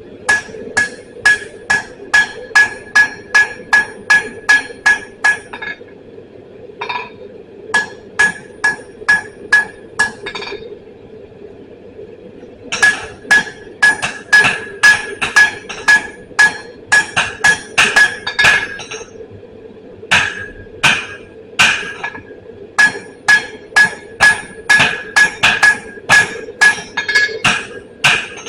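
Hand hammer striking hot steel on an anvil while forging a punch, about three blows a second, each with a bright ring. The blows come in runs of several seconds with short pauses between them.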